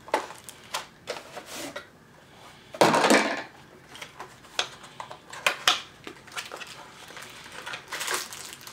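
Cardboard packaging handled and opened: a string of light taps, clicks and rustles, with one louder scraping rustle about three seconds in.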